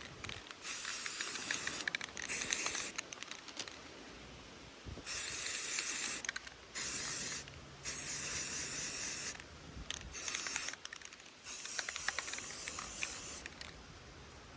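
Aerosol spray-paint can hissing in short bursts of a second or two each, about eight times, with short pauses between: light dusting passes of paint.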